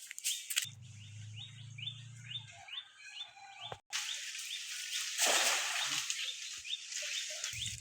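A bird chirping in a rapid series of short rising notes, a few a second, over steady outdoor background hiss. A low hum runs for about two seconds near the start.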